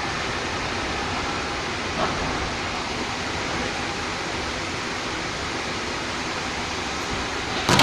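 Steady hubbub of a large outdoor crowd waiting for the fireworks, heard as an even roar of many voices, with a sharp bang just before the end as the first firework goes off.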